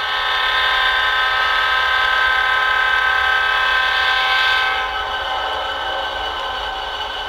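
Diesel locomotive air horn sounding one long held chord over a low rumble, loudest for the first four and a half seconds, then a little softer.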